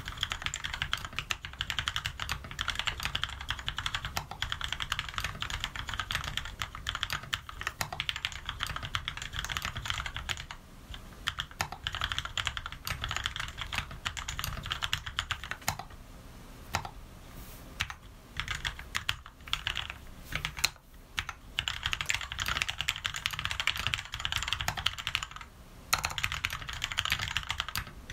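Typing on an Anne Pro mechanical keyboard with lubed Cherry MX Red switches and 62 g custom springs: a fast, steady stream of keystrokes that thins to scattered single key presses for a few seconds around the middle.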